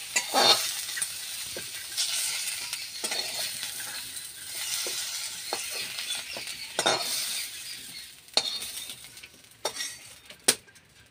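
Fried potato pieces sizzling in hot oil in a metal kadai while a spatula scrapes and knocks against the pan, lifting them out. The sizzle fades about eight seconds in, leaving a few sharp clicks of the spatula on metal.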